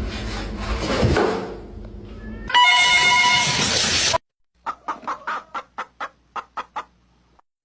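Chicken calls: a loud, held squawk that cuts off abruptly, followed by a run of about ten short clucks, roughly four a second.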